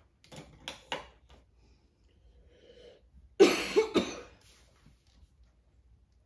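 A person coughing, loudest as two quick coughs about three and a half seconds in, with a few quieter short sounds near the start.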